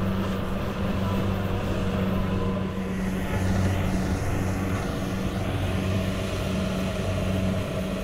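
Rice combine harvester's engine running with a steady low drone that holds one pitch throughout.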